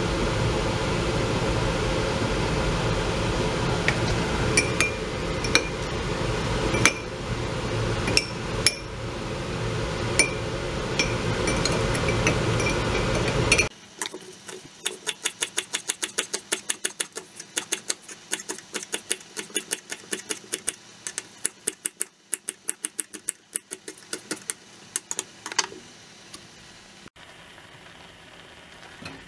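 A steady fan-like hum with a handful of sharp, ringing clinks of glass on ceramic, as a sauce bottle is tipped over a bowl. About fourteen seconds in the hum cuts out, and a kitchen knife chops spring onions on a wooden cutting board, about three quick chops a second, for some twelve seconds.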